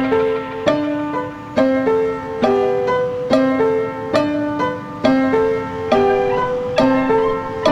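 Music: plucked, ringing notes repeating a short phrase, a new note a little under once a second.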